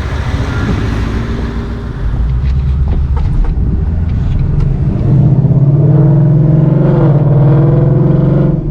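Ford Mustang GT's 5.0 V8 exhaust, running and then revving harder about five seconds in, its note rising and easing back before cutting off near the end.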